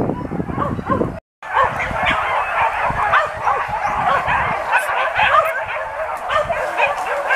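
A pack of hunting dogs yelping and baying, many voices overlapping without pause, broken by a short drop-out about a second in.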